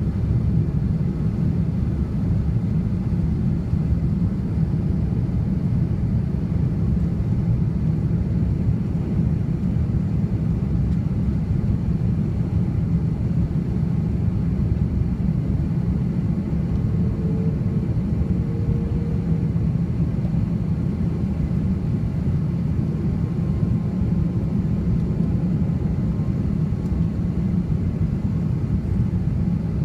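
Steady low rumble of engine and airflow inside a jet airliner's cabin, heard at a window seat beside the wing-mounted engine during the descent toward landing.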